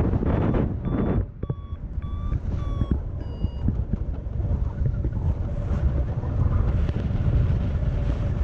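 Wind rushing over the microphone of a paraglider in flight. From about one to four seconds in, a flight variometer beeps in short high tones about twice a second, the sign that the glider is climbing in lift.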